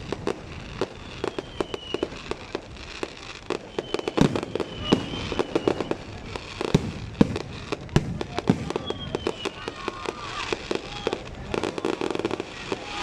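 Fireworks going off: a dense, irregular run of bangs and pops over continuous crackling.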